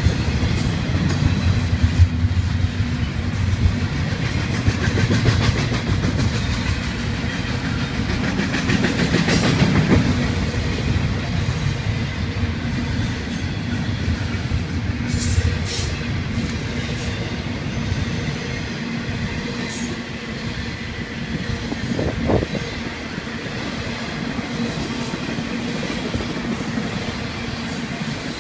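Double-stack intermodal freight cars rolling past: a steady rumble and clatter of steel wheels on the rails. In the last several seconds a thin, high wheel squeal grows louder.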